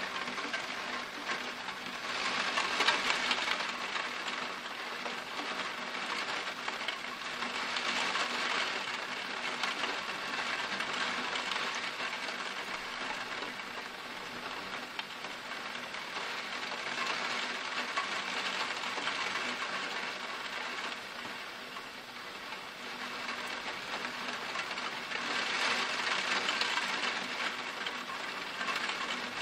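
Torrential rain pouring down in a steady hiss that swells louder in waves a few times, most strongly about three seconds in and again near the end.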